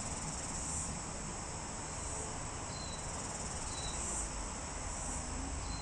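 Insects chirping in a steady, high-pitched chorus, with a faint low rumble underneath and a few short, faint chirps about three and four seconds in.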